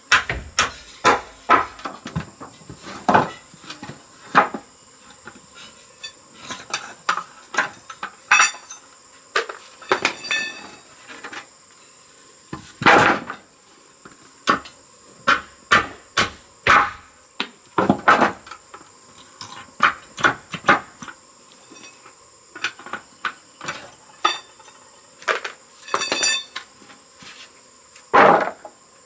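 Irregular knocks, taps and clatters of hand work, such as hammering, a few of them with a short ringing rattle. Under them runs a steady, high insect drone.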